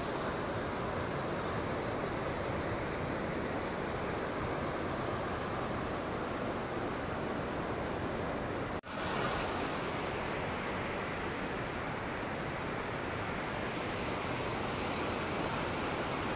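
Steady rush of river water, with a momentary break about nine seconds in.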